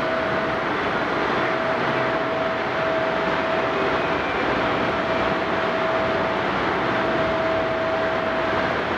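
Steady rushing noise at an even level, with a faint steady tone running through it that stops near the end.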